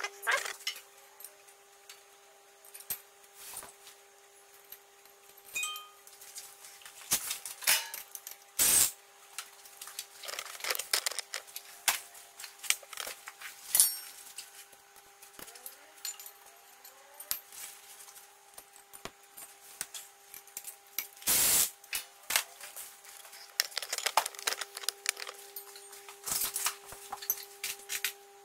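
Intermittent metallic clinks, taps and rattles of hardware and tools being handled while assembling a steel gym machine, with two heavier knocks about 9 and 21 seconds in, over a faint steady hum.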